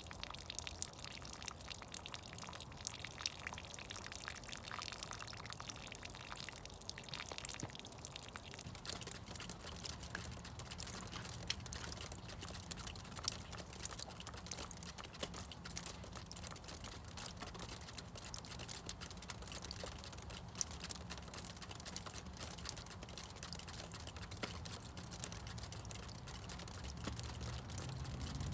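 Meltwater from thawing snow dripping and trickling: many quick, irregular drips over a steady low rumble.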